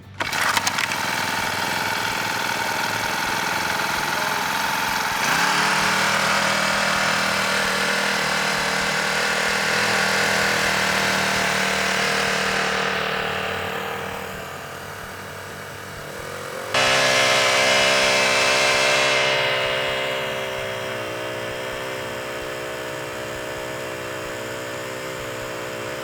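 Small engine of a portable winch starting up and running as it hoists a bear carcass. The engine note shifts a few seconds in and jumps up sharply about two-thirds of the way through, then settles.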